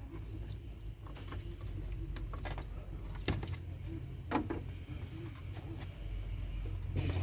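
Electrical tape being pulled off the roll and wrapped around a wiring connector to hold it firmly seated: a few short sharp rips and clicks over a steady low hum.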